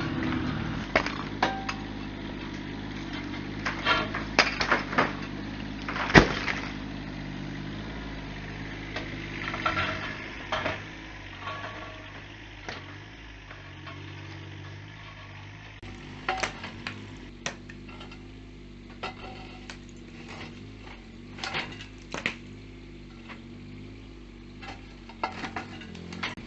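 Mini excavator's diesel engine running steadily under a varying load while demolition debris knocks and clatters in irregular metallic clinks and crashes, the loudest strike about six seconds in.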